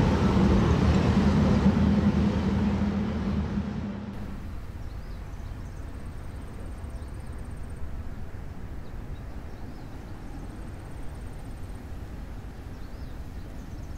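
A steady low mechanical hum over a noisy rush, which fades out about four seconds in. It leaves quiet outdoor background with a few faint high chirps.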